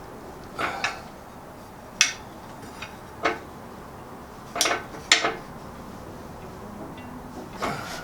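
A scrap aluminum strip clinking and knocking against a lift as it is bent by hand: a string of short, sharp metallic knocks at irregular intervals.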